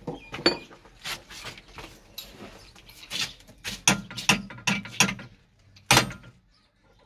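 Irregular metallic clanks and knocks from tools and pipe fittings being worked on a hand pump, about a dozen, the loudest about six seconds in.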